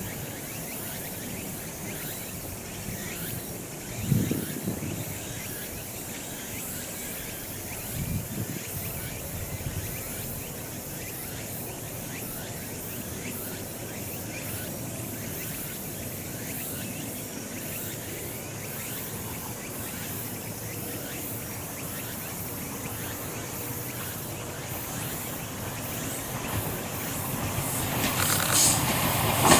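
Insects chirping steadily in the evening fields, with two brief low thuds about four and eight seconds in. Near the end the Ohmi Railway electric train set 301F grows louder as it approaches.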